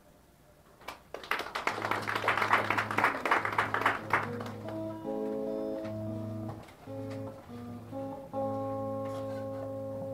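Brief applause from a small audience, fading out after about three seconds, followed by instrumental music of held notes that change every second or so.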